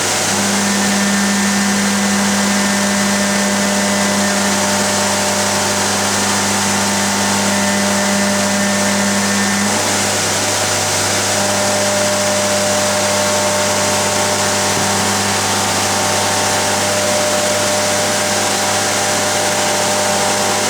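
Bridgeport vertical machining centre running a part program: a steady machine and spindle hum over a broad hiss. The hum shifts about halfway through and drops back a few seconds later.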